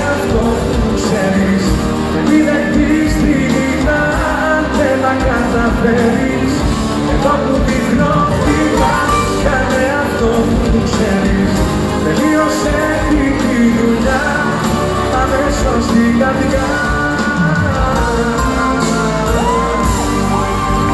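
Live band with a male lead singer performing a song, heard from among the audience in a large hall, with ornamented sung notes near the end.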